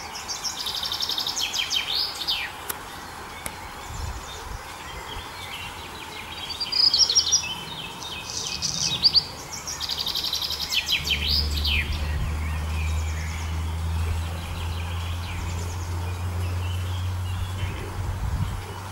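A songbird singing three phrases, each a fast trill of repeated notes ending in a quick falling flourish. A low steady hum comes in about two-thirds of the way through.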